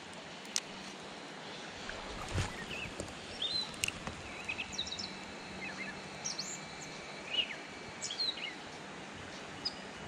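Small birds chirping, a string of short high calls through the middle of the stretch, over a steady outdoor hiss. A single click early on and a soft knock about two and a half seconds in.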